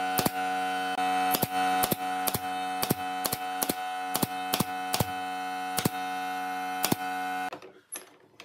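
Pneumatic brad nailer firing brads through wooden slats into a bench frame: a run of about sixteen sharp shots, two to three a second, over a steady hum. The shooting stops about seven seconds in.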